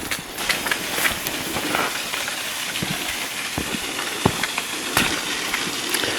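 Footsteps on a rough bush track with fern fronds brushing and crackling against the walker, irregular clicks and rustles over a steady hiss.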